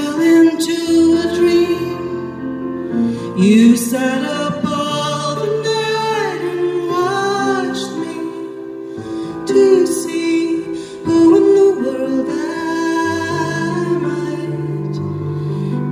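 A woman singing a slow song to her own Roland RD-800 stage piano accompaniment, with held low chords under the vocal line.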